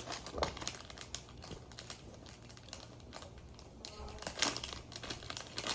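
A gummy candy packet's wrapper crinkling and crackling in the hands as it is worked open, in irregular bursts of small crackles that grow louder near the end.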